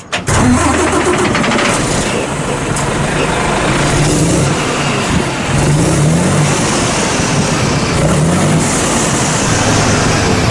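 Exhaust of a 2017 Mitsubishi Fuso Super Great's 6R20 inline-six diesel, sounding loudly from a home-made triple-outlet muffler, its low note rising and falling a few times as the engine runs.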